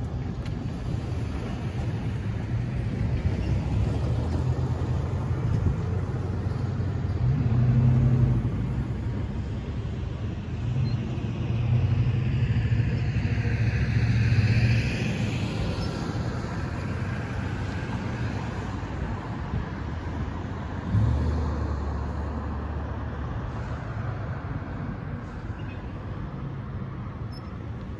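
Road traffic: cars and pickup trucks driving past and over a railroad grade crossing, their engine and tyre noise swelling and fading as each passes, loudest near the middle. About three-quarters of the way through there is a sudden thump, followed by a low engine drone.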